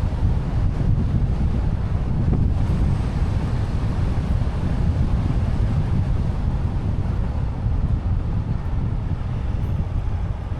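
Kia Sportage driving along a road: a steady low rumble of road and wind noise.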